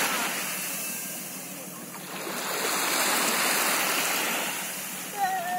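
Small sea waves washing up on a shelly sand shore and draining back, one wash fading away and the next swelling in about halfway through. A voice starts just before the end.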